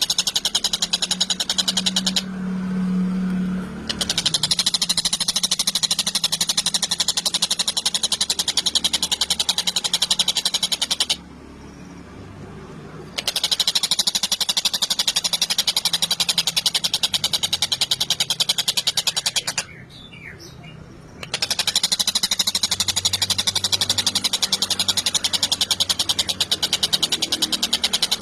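Tengkek buto kingfisher giving a loud, very fast rattling trill in long bouts, with three short breaks.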